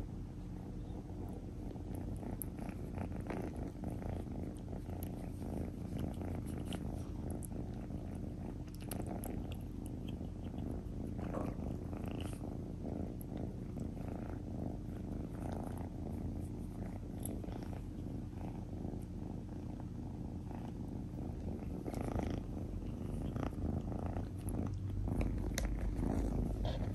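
Red tabby kitten purring steadily and close up, with many small scattered clicks and rustles over the purr.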